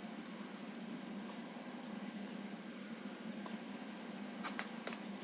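Faint scratching of a paintbrush dabbing seam sealer onto welded steel, over a low steady hum. A few light clicks come near the end as the brush goes back into the sealer tin.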